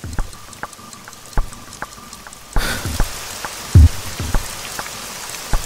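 Clock ticking steadily; about two and a half seconds in, heavy rain sets in suddenly and keeps on, with one loud deep thud near four seconds.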